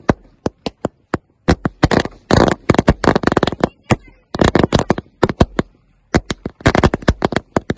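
A string of firecrackers going off as a rapid, irregular crackle of sharp pops, with short pauses between bursts.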